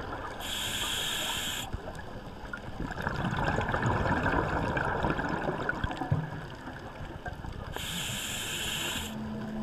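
Scuba diver breathing through a regulator, heard underwater: a hiss of inhaled air about half a second in and again near the end, with a longer bubbling exhale between.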